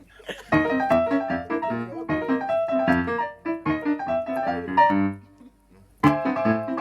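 Piano played in ragtime style, with rhythmic chords and melody. It stops briefly about five seconds in and starts again a second later.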